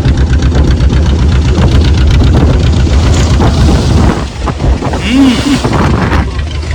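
Boat engine running with a rapid, even pulsing that drops away about four seconds in.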